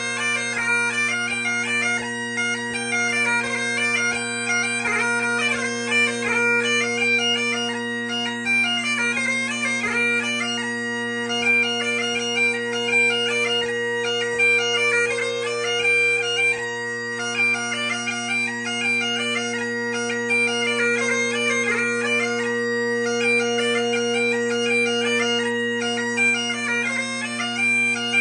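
3D-printed Highland bagpipes played: steady drones sounding under a continuously moving chanter melody.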